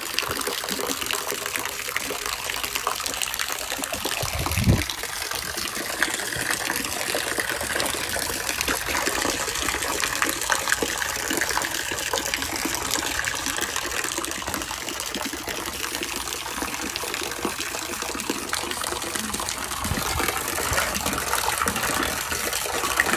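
Water gushing steadily and churning in a galvanized metal stock tank. There is one brief low thump about five seconds in.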